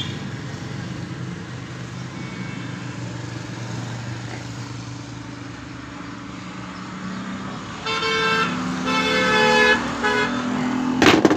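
Road traffic going by with a steady engine hum. About eight seconds in a vehicle horn sounds twice in quick succession, and a sharp clack comes just before the end.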